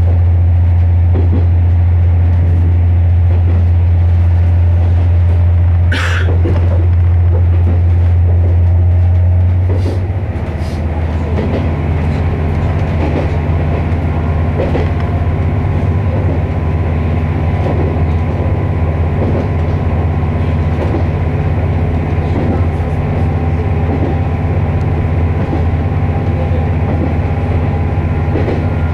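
KiHa 48 diesel railcar under way, heard from inside its rear cab: a steady low engine drone that drops and changes note about ten seconds in, then wheels knocking over rail joints at a steady pace. A brief high squeak about six seconds in.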